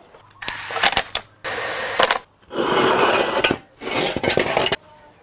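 Clattering and scraping as the engine's plastic top cover is set in place and a steel jack stand is handled under the car. Four rough bursts about a second long each, with sharp knocks among them.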